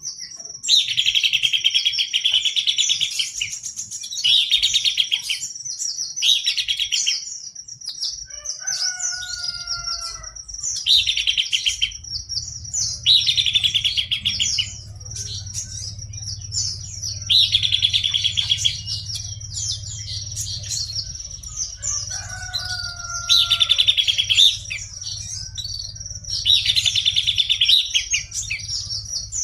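Horsfield's babbler (pelanduk semak) singing hard: rapid trilled phrases about a second long, repeated every couple of seconds over a continuous thin high-pitched tone, with a short run of lower whistled notes twice.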